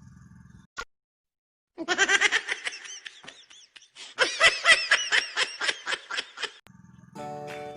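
Laughter sound effect: two runs of rapid, high-pitched ha-ha-ha laughter, the second longer, following a single click and a short silence. A low steady background hum stops before the laughter and comes back near the end.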